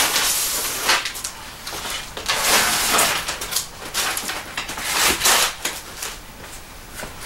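Large styrofoam packing box being worked apart by hand, foam scraping and rubbing against foam and tape in several scratchy bursts.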